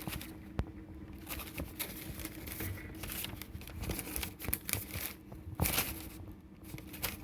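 Irregular rustling and crinkling with light knocks and clicks, over a faint steady low hum.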